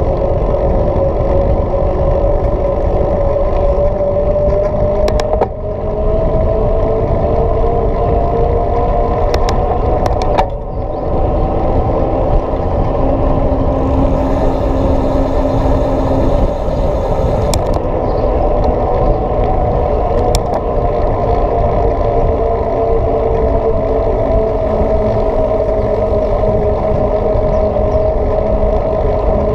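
Road and wind noise from a mountain bike riding along asphalt, picked up by a camera moving with it. There is a steady rumble, a hum that slowly rises and falls in pitch, and a few sharp clicks.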